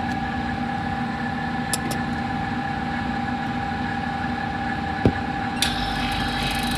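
Steady hum of an electric motor or pump with a fixed whine. A single click comes about five seconds in, and a hiss of air starts shortly after.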